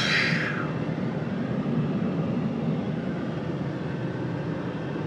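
Cummins 24-valve inline-six turbo diesel of a 1999 Dodge Ram 2500 running under way, heard from inside the cab with steady road noise. A brief high whine slides down and fades out in the first half second.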